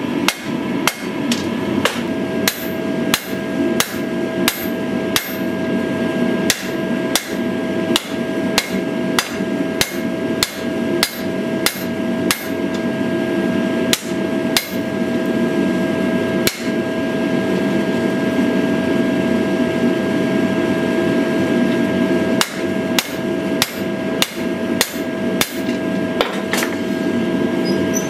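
Hand hammer striking hot steel on an anvil while forging a knife blade, in a steady rhythm of about two blows a second. The blows stop for several seconds past the middle, then start again. Under them runs a steady rushing noise with a held hum.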